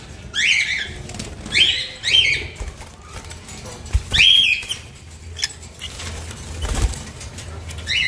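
Caged small parrots giving shrill, harsh calls that sweep down in pitch. There are four loud calls in the first half and fainter ones after, over a low steady hum, with a couple of low thumps.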